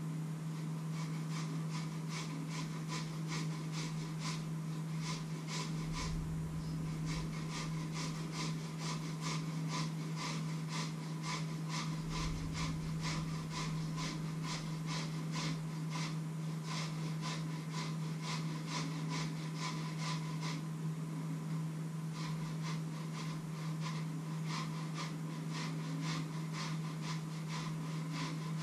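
A knife chopping on a wooden cutting board in an even rhythm, about three strokes a second, pausing briefly about three-quarters of the way through. A steady low hum runs underneath.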